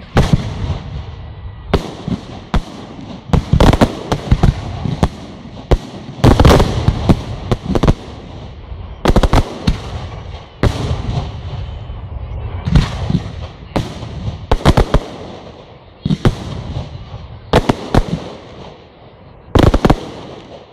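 Fireworks display: aerial shells bursting in a long series of loud bangs, some single and some in quick clusters, each followed by a fading echo.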